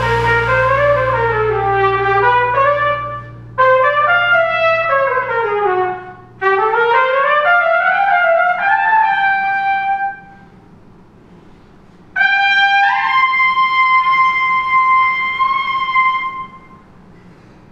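Trumpet playing an unaccompanied-sounding solo: three phrases of quick rising and falling runs, with a low held chord underneath that fades out in the first few seconds. After a short pause it scoops up into one long held high note.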